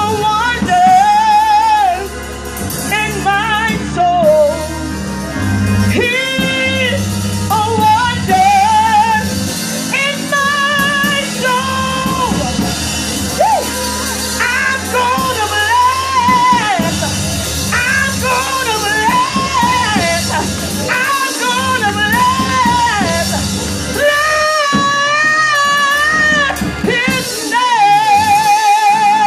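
A woman singing into a microphone over instrumental accompaniment with sustained low notes. Her long held notes carry a wide vibrato, most clearly near the end.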